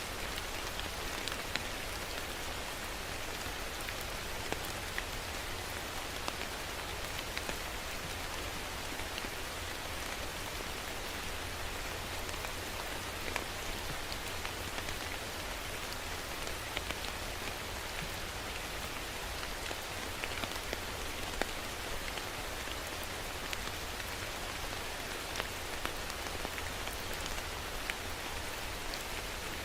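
Steady rain falling on a surface, an even hiss with many small drops ticking through it.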